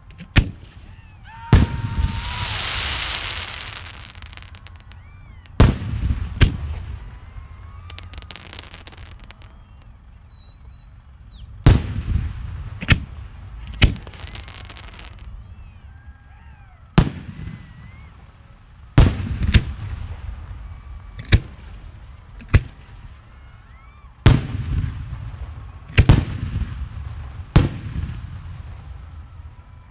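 Professional display fireworks going off: about fifteen sharp booms at irregular intervals, each trailing off in a long rumbling echo. About two seconds in, one burst brings a two-second rush of noise.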